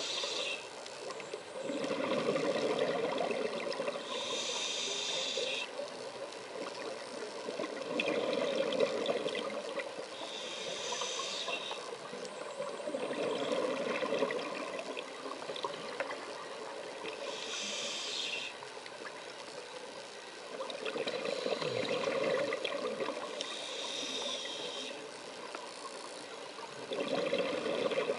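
Scuba diver breathing through a regulator underwater: a short hiss on each inhale, then a longer bubbling rush of exhaled air, repeating about every five to seven seconds.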